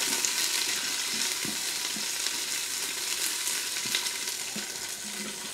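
Chopped white onion sizzling in hot coconut oil with whole spices in an Instant Pot's stainless steel inner pot on sauté high, stirred with a silicone spatula with a few soft scrapes. The sizzle eases slightly toward the end.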